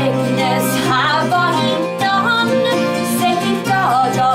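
Two acoustic guitars playing a folk song while a woman sings the melody.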